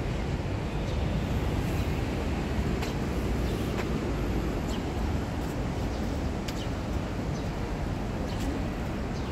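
Steady low rumble of outdoor city ambience, like distant traffic, with a few faint short high ticks scattered through it.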